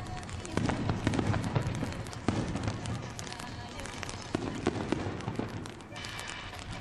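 Aerial firework shells bursting in quick succession, a dense run of sharp bangs and crackles over a low rumble, thick for the first two seconds or so and then thinning out to scattered pops.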